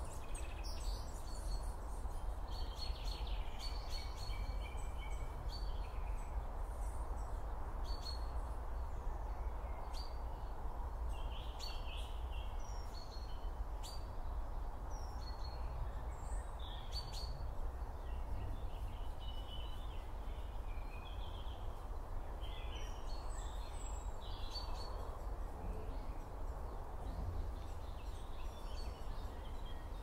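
Meadow ambience: a steady background noise with birds chirping and calling in short, scattered bursts throughout.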